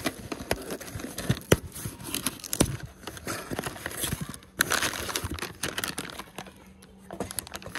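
Cardboard shipping box being pulled open by hand, with scrapes and clicks from the flaps, then a plastic packing bag crinkling as it is handled, loudest a little past halfway.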